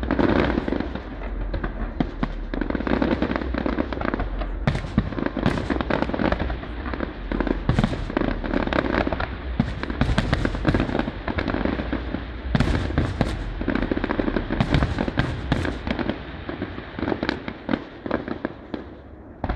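Display fireworks: aerial shells bursting in rapid, overlapping bangs with crackle, the bangs thinning out and growing quieter near the end.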